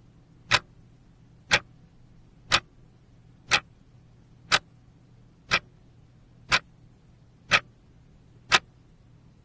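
Clock-tick sound effect marking a countdown: nine sharp ticks, one each second, over a faint steady low hum.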